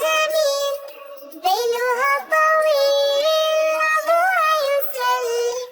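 A child's high voice singing a children's song melody without instruments, in long held notes that slide between pitches, with two short breaths.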